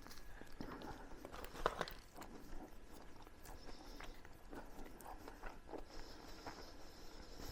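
A person chewing a mouthful of burger: faint, close mouth sounds with small wet clicks, and one sharper click about a second and a half in.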